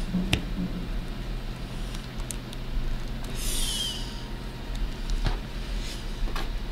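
Small sharp plastic clicks and a brief squeaky scrape as a plastic action figure's parts are handled and fitted together, over a steady low hum.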